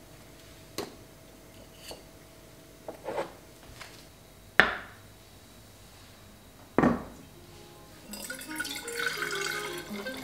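Light clinks and knocks of kitchenware: chopsticks and rice cakes on a metal wire-rack tray, then a glass cloche set down over a plate with a sharp knock. Near the end, water pours into a glass carafe over soft music.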